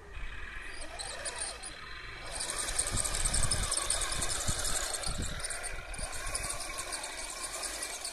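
1/16 scale Heng Long M41 Walker Bulldog RC tank driving over grass and dirt, its running noise steady and getting louder about two seconds in as it moves off.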